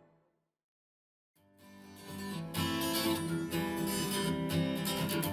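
Music played through small desktop studio monitor speakers and recorded in the room: the end of one track fades out, then after about a second of silence a strummed acoustic guitar track comes in and builds to full level.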